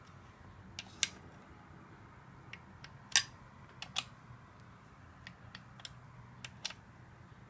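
Click-type torque wrench on the valve-body bolts of a 42RE automatic transmission, giving short sharp metallic clicks as each bolt is rechecked at its set torque. Four louder clicks come a second or two apart, the loudest about three seconds in, with fainter ticks between.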